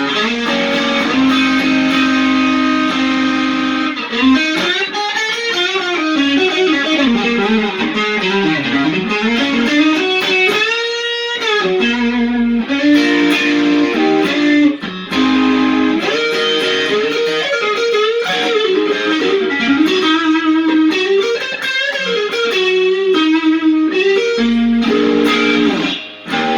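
Electric guitar playing a blues lead with string bends and vibrato, through a Keeley-modded TS808 Tube Screamer boosting a Lovepedal Supersix overdrive into a Fender Hot Rod Deville amp, at moderate overdrive gain.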